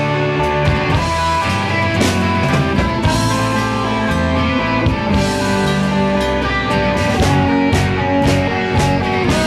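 Live rock band playing an instrumental passage: electric guitar, bass, keyboard and drums, with regular drum hits under sustained notes.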